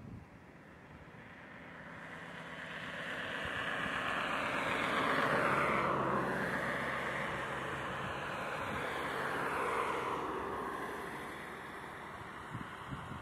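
Boeing 737-800's CFM56 jet engines whining as the airliner turns on the runway. The jet sound swells to its loudest about five seconds in and eases off toward the end, with whine tones that sweep down in pitch twice.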